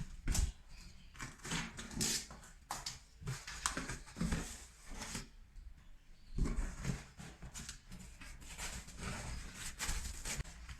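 Cardboard box and packing being opened and handled: irregular rustling, scraping and knocks.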